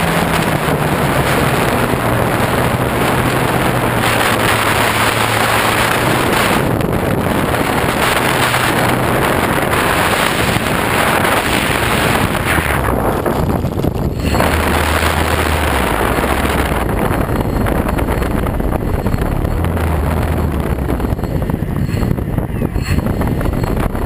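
Wind rushing over an RC plane's onboard camera, with the low hum of the FunCub's electric motor and propeller stepping down in pitch as it throttles back for landing. About halfway through the wind rush drops away as the plane touches down and rolls on the grass, leaving a lower motor hum and rumble.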